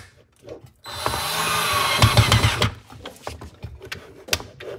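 Black+Decker LD120 20V MAX cordless drill/driver running for about two seconds, starting about a second in, as it drives a screw into a wooden block at its highest torque setting without a pilot hole. It is followed by a few light clicks and knocks.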